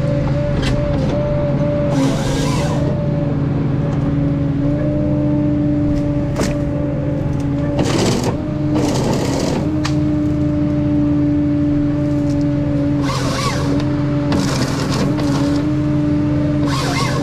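Ponsse Scorpion King forest harvester's diesel engine and hydraulics running under load with a steady pitched drone. Several short bursts of cracking noise from the harvester head working trees come about two seconds in, around eight to ten seconds, around thirteen to fifteen seconds and near the end.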